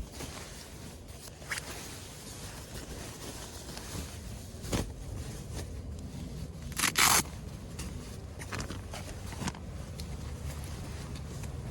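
Short scrapes and clicks of handling over a low steady rumble. The loudest is a brief rasping double stroke about seven seconds in.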